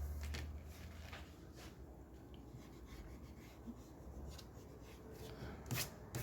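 Pencil strokes on paper: a series of short, faint scratching strokes, with two louder strokes near the end.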